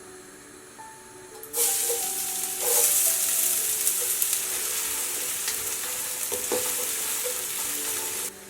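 Food sizzling loudly in hot oil in a pan. It starts suddenly about a second and a half in, as the food goes into the oil, grows louder a second later, and cuts off abruptly near the end.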